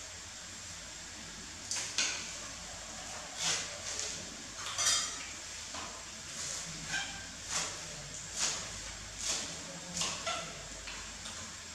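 Kitchen knife chopping leafy greens on a round wooden chopping board: about a dozen separate strokes, roughly one or two a second, starting about two seconds in.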